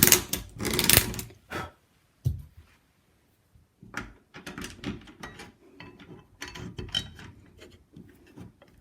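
Door-handle hardware being handled: a run of knocks and clicks in the first second and a half, one knock, a short pause, then several seconds of small clicks and rattles.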